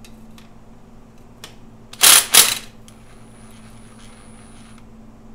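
Cordless impact driver run in two short, loud bursts about two seconds in, backing out a radiator mounting screw. A few light clicks of the bit and tool come before.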